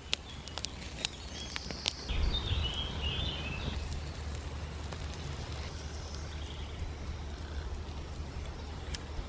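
Small wood fire crackling, with sharp pops in the first couple of seconds, then a steady hiss. A bird calls briefly about two to three seconds in.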